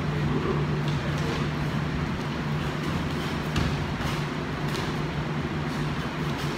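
A steady low hum fills the room, with a few faint thuds and scuffs from two men sparring with kicks and hand strikes.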